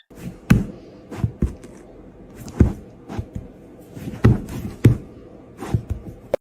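About ten sharp knocks and taps at uneven intervals over a faint steady background.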